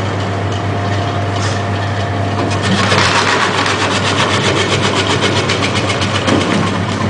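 Electric vegetable-cutting machine running: a steady motor hum, joined about three seconds in by a rapid, even clatter from the cutting mechanism.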